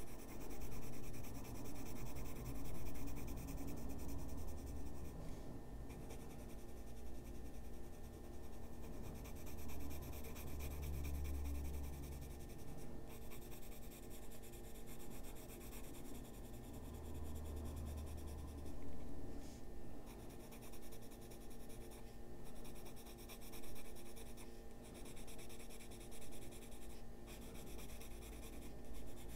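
Coloured pencil rubbed back and forth on paper: steady soft scratching of shading strokes.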